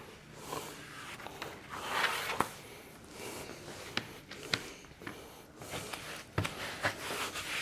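A hand glue applicator rubbing and brushing glue over a wooden panel, with scattered light clicks and taps of the tool and sheets being handled.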